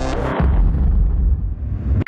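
Electronic logo sting with sound effects: a bright tone with many overtones that cuts off about half a second in, then a deep, steady low rumble.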